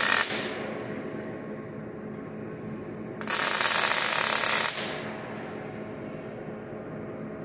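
Robot-held MIG welding torch on a KUKA arm striking an arc: a loud crackling sizzle that cuts off just after the start, then a second short weld about three seconds in lasting about a second and a half. A steady machine hum runs underneath.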